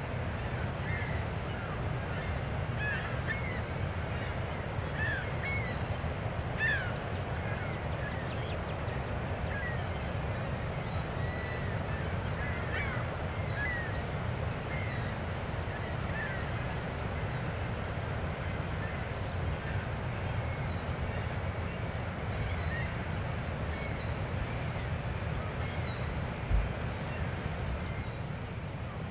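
Many short bird calls, repeated throughout, over a steady low rumble; a single brief thump near the end.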